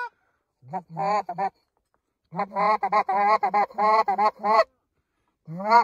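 Geese honking in quick runs: a short burst about a second in, a longer run of rapid honks at about four a second in the middle, and one more honk near the end.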